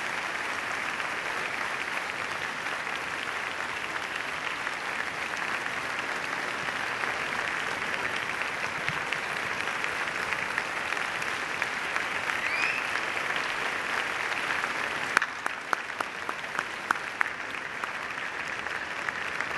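A large audience applauding steadily. About fifteen seconds in, the applause thins out to scattered individual claps.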